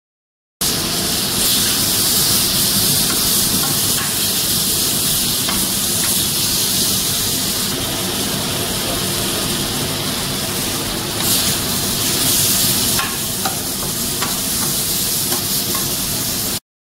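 Stir-fried noodles with beef and vegetables sizzling on a hot griddle: a steady frying hiss with a few light clicks through it. It starts suddenly about half a second in and stops just before the end.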